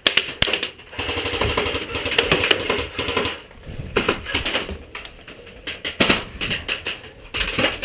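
Airsoft guns firing in rapid bursts, a fast run of sharp clicking shots.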